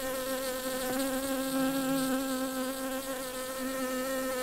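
A bee buzzing in one steady, unbroken drone, its pitch holding level throughout.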